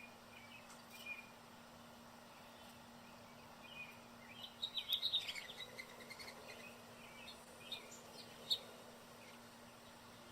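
Wild backyard birds chirping: a few scattered chirps, a busy flurry of them about halfway through, and one sharp chirp near the end.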